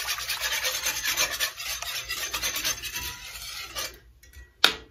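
Wire whisk beating broth and cream in a cast-iron skillet: rapid, rhythmic scraping strokes against the pan, which stop near the end, followed by one sharp tap.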